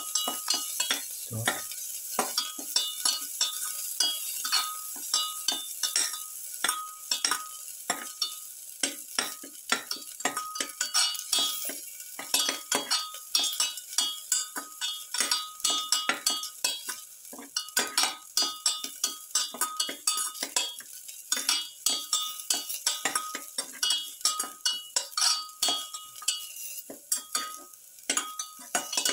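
A spatula stirring and scraping garlic, onions and shallots in oil in a metal pan, with quick repeated clinks and scrapes against the pan over a steady sizzle.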